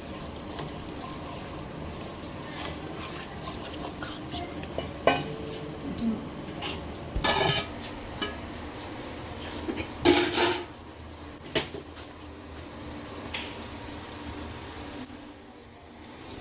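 Metal cooking utensils clinking and scraping against a pot over a steady background noise, with a handful of separate clatters, the loudest about ten seconds in.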